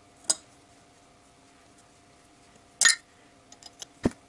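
An open-end spanner working two locked nuts on a cylinder-head stud that has broken loose and is turning out: scattered metal clinks as the spanner is reset, a click just after the start, a louder clink near three seconds, a few light ticks, then a sharp knock near the end.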